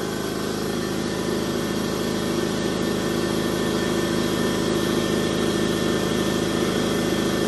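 Fortress 27-gallon 200 psi upright air compressor running steadily as it pumps up its tank, with pressure building toward its automatic cut-off.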